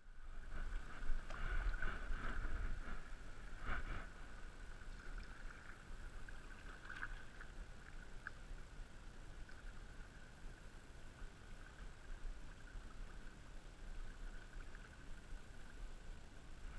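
Kayak paddle strokes splashing in a shallow river, with a few louder strokes in the first few seconds and near the middle, over steady rippling and trickling water around the hull.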